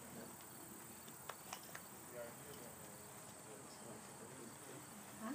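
Faint outdoor ambience with a steady high-pitched insect drone, and two soft clicks about a second and a half in.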